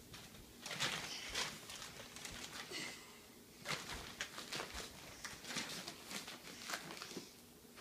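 Plastic tarp crinkling and rustling as it is folded over bedding, in several short spells.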